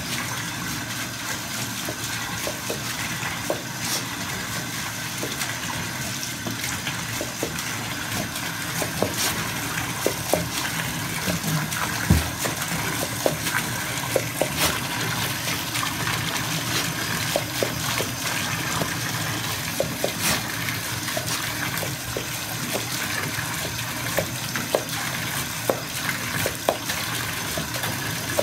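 Bathtub tap running steadily into a filling tub, with a bull terrier snapping and lapping at the falling stream: irregular short splashes and clicks over the rush of water. One louder thump about twelve seconds in.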